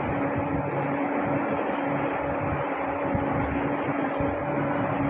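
Speedboat engine running steadily while the boat moves along, with water washing along the hull.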